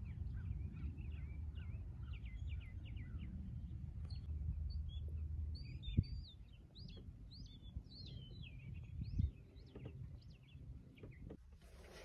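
Small birds chirping in quick runs of short, high notes, over a low rumble that eases off about halfway through. Two soft knocks, one about halfway through and another a few seconds later.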